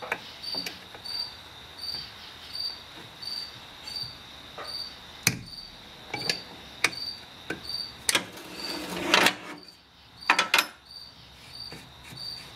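A flare nut wrench clicking and scraping on the metal brake line nuts at a 2004 Ford F-150's master cylinder as they are loosened. There are several sharp clicks, then a louder scraping burst and more clicks about eight to ten seconds in. A steady high chirp repeats about twice a second underneath.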